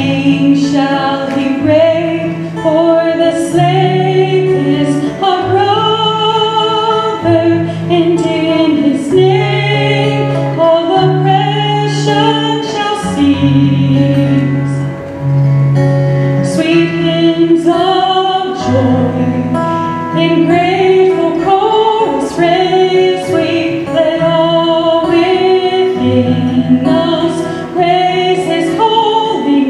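A woman singing into a handheld microphone, accompanied by an acoustic guitar.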